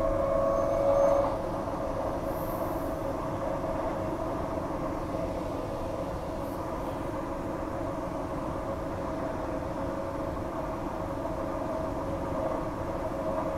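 Transperth A-series electric multiple unit heard from inside the carriage while running along the line: a steady rumble with a held humming tone, a little louder for about the first second.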